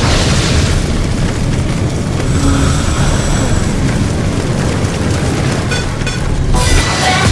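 Title-sequence sound effect: a deep boom that hits at the start and rumbles on, with a brighter hissing surge near the end.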